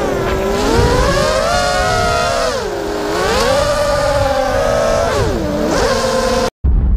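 Brushless motors of an FPV racing quadcopter (Xhover 2204 2300KV) whining, the pitch falling and rising together as the throttle changes. The sound cuts off suddenly near the end, followed by a short low rumble.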